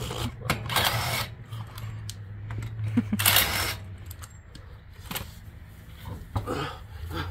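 Cordless impact wrench spinning lug nuts off a truck wheel in two short bursts, about a second in and again at about three seconds.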